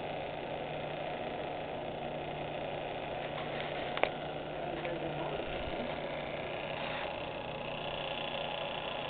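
Small vintage metal lathe's belt-driven electric motor running with a steady hum. A single sharp click about four seconds in.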